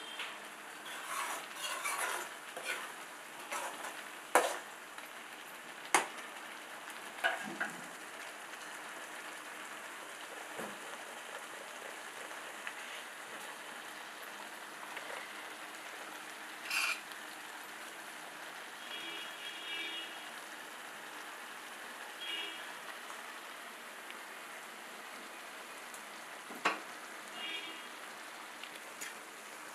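Chicken gravy simmering in a pan with a steady sizzling, bubbling hiss, broken by a few sharp knocks against the pan, about four of them loud.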